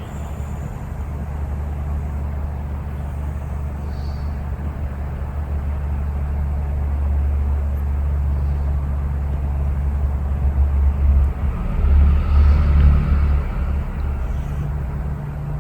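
A steady low rumble that swells about ten to thirteen seconds in, then eases.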